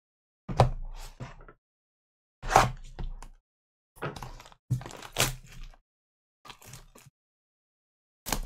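Cardboard trading-card boxes handled and set down on a tabletop: a string of about eight separate knocks and thunks. Near the end a sealed box's cellophane wrapper crackles as it is picked up and opening begins.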